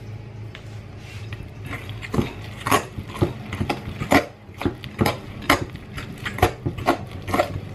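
Wet flour-and-water dough being squeezed and pressed by hand in a glass bowl: irregular wet squelches and knocks, about two a second, starting about two seconds in. The dough is still wet and sticky.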